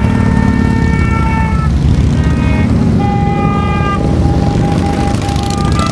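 A procession of motorcycles riding past with a steady, dense engine rumble, while riders sound their horns: several long honks, then a string of short beeps from about three seconds in.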